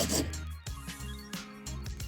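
Background music with sustained bass notes and light, regular percussive clicks.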